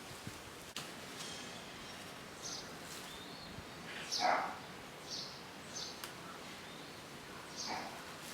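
Birds chirping outdoors: short high chirps every second or so. A louder, lower call that falls in pitch comes about four seconds in and again near the end, over a faint steady hiss of outdoor air.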